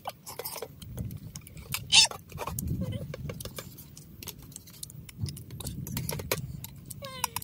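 Metal knife and fork clinking and scraping against a plate as a piece of roast beef is cut, in a run of separate sharp clicks, the loudest about two seconds in.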